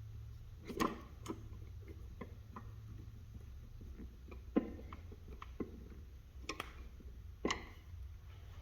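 Screwdriver retightening the screw of an outlet's wall plate: irregular small clicks and ticks, a few louder ones about a second in and near the end, over a low steady hum.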